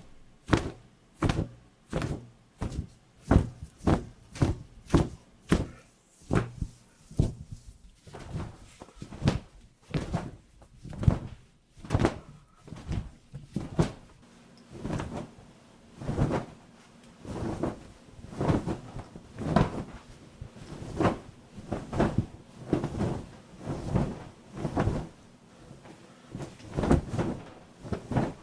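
Cloth flapped hard through the air over and over, a long series of whooshing flaps a little faster than one a second. They are sharp snaps at first and softer, more drawn-out swooshes in the second half. These are raw recordings made as source material for large wing flaps.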